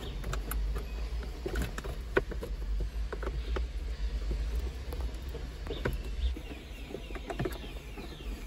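Wiring cables being handled and pulled through the plastic dash opening: scattered rustling, scraping and small clicks of cable against trim, with one sharper click about two seconds in, over a steady low rumble.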